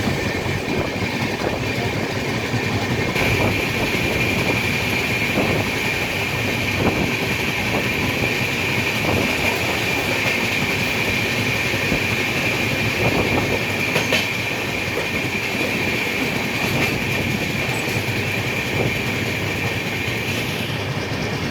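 Train running along the track: a steady rumble of wheels on rail with scattered clicks, and a thin high whine that grows stronger about three seconds in.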